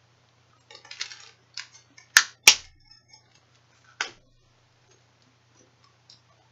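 Plastic-covered sheet of stickers handled and flexed, crinkling and crackling in short irregular bursts, with two sharp loud snaps a little after two seconds in and another at about four seconds. A faint steady low hum runs underneath.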